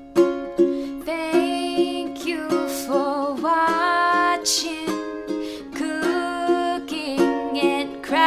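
Background music: short notes repeating about twice a second, with a melody that slides between notes coming in about a second in.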